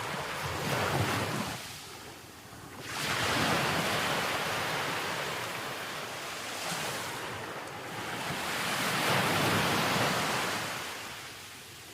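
Sea waves breaking and washing in: surf noise that swells and fades three times, briefly about a second in, then longer surges from about three and about eight seconds in.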